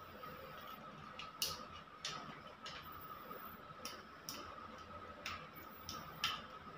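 Sharp, irregularly spaced clicks and ticks, about eight of them, from hands working a two-gang wall switch and its wires into place, over a faint steady hum.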